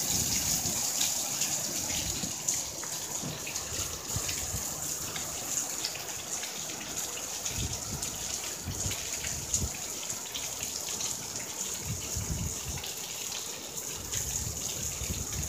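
Heavy rain falling steadily: a dense hiss of many drops, with now and then a brief low rumble.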